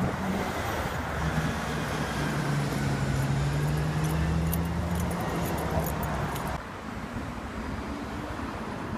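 A TTC Orion VII city bus drives past with a steady engine hum over road traffic noise. About two thirds of the way through it cuts off suddenly to quieter, more distant street traffic.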